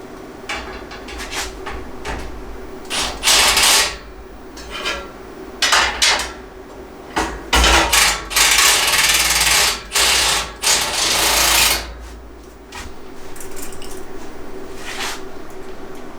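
Metal parts of a battery rack being handled and fitted together: a string of scraping and clanking noises, some brief and some lasting a second or two, loudest in the middle.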